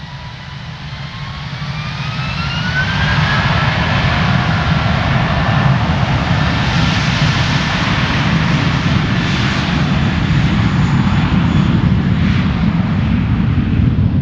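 Airbus A321 turbofan jet engines spooling up: several whining tones rise over the first three seconds, then settle into a steady, loud roar at high thrust, typical of takeoff power.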